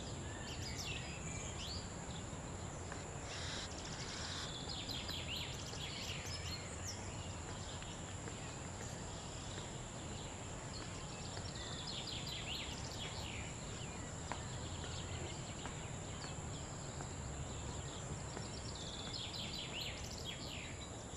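Garden ambience: small birds chirping in short scattered bursts every few seconds over a steady hiss and a constant high-pitched whine.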